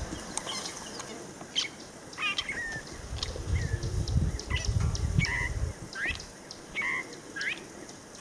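Several wild birds calling with short chirps and quick rising and falling notes, many times over. A low rumble runs between about three and six seconds in.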